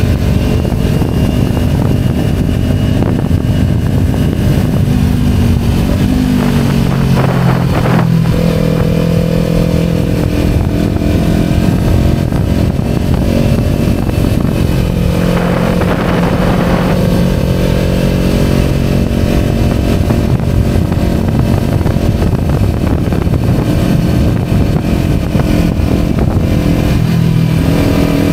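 Kawasaki Ninja 250 motorcycle engine running at road speed under heavy wind rush, its note shifting pitch a few times as the revs change.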